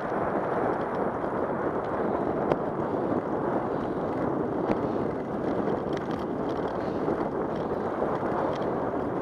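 Steady wind noise on the microphone of a camera riding on a moving bicycle, with a few faint ticks.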